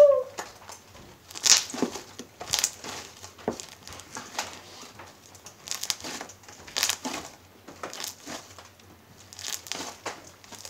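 Homemade fluffy slime of glue and shaving cream being kneaded and stretched by hand, giving irregular crackling clicks and pops.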